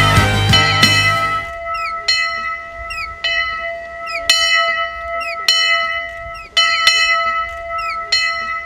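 A small hand-rung bell in a wooden belfry, struck roughly once a second, each stroke ringing on with a clear pitch. Faint high squeaks come between the strokes. Music fades out in the first second and a half.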